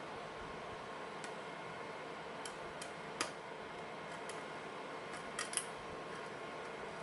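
Lock picking: scattered, irregular light metallic clicks and ticks as a pick works the pins of a pin-tumbler lock held in a vise, over a steady background hiss.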